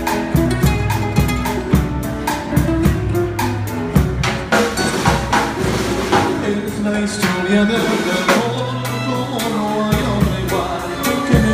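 Live acoustic band playing a Latin-style song: two acoustic guitars, a violin and a drum kit keeping a steady beat.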